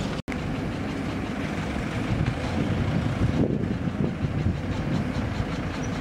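Diesel engines of a tractor hauling a mud-loaded trolley and a JCB 3DX backhoe loader running steadily, broken by a split-second dropout just after the start.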